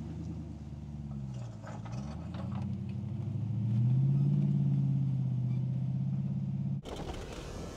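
Jeep Gladiator's engine working the truck up over a rocky washout, its pitch dipping and rising with the throttle, then climbing and holding high for a few seconds under load, with a few knocks from stones under the tyres about two seconds in. The engine sound cuts off abruptly near the end and gives way to a rough, noisy rush.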